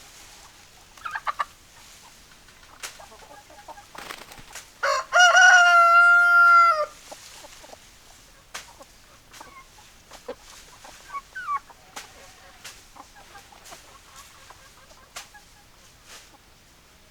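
A rooster crows once, a loud call of about two seconds held at a steady pitch, about five seconds in. Hens give short clucks before and after it, among scattered small clicks.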